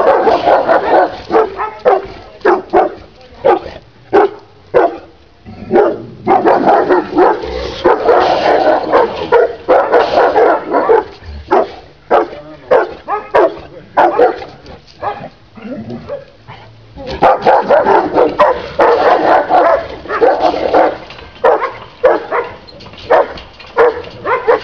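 Two Serbian defense dogs barking hard in rapid volleys with short lulls. This is defensive, aggressive barking at a man provoking them through a wire gate in a character test.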